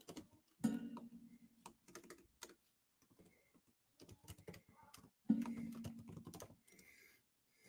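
Computer keyboard typing: quick runs of key clicks, with two louder bursts of typing about a second in and about five seconds in.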